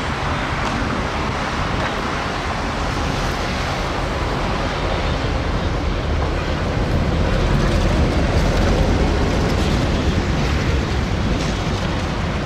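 EMD 12-567C two-stroke V12 diesel of a GM B12 locomotive running as the locomotive rolls toward and past the listener, a steady deep rumble that swells for a few seconds past the middle.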